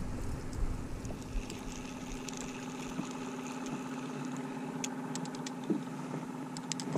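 A boat engine idling with a steady hum, and a few light clicks from a spinning reel as a perch is cranked in.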